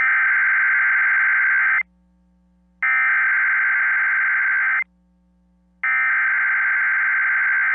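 Three bursts of NOAA Weather Radio EAS/SAME digital header tones, the harsh two-tone data screech that encodes an alert, each about two seconds long with about a second of quiet between. The three bursts mark the start of a new alert message.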